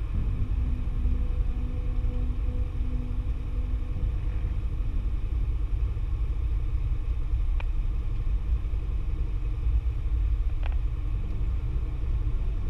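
Single-engine light aircraft's piston engine and propeller running at a steady low rumble, heard from inside the cockpit during the runway roll. Two brief clicks come about 7.5 and 10.5 seconds in.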